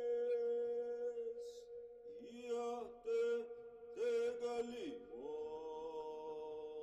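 Slow chant: a voice holds long notes over a steady drone, with a few short gliding syllables in the middle before one more long held note.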